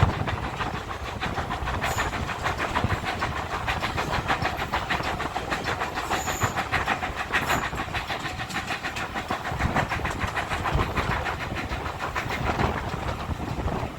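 Steam-hauled train on the move, heard from on board behind GWR Manor-class 4-6-0 No. 7828 Odney Manor: steady running noise with a quick, even rhythm of beats.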